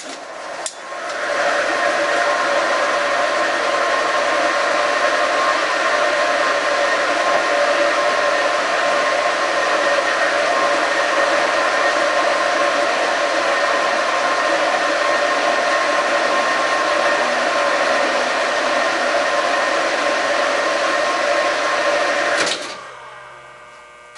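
Horizontal boring mill running: a loud, steady machine whir with a hiss, switched on with a click about a second in and cutting off shortly before the end.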